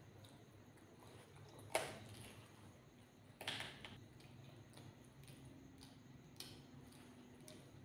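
Quiet mukbang eating sounds of rice and chicken curry eaten by hand: chewing and fingers working the food. A sharp wet click comes about two seconds in, a longer wet smack follows around three and a half seconds in, and a smaller one comes near the end, over a faint low hum.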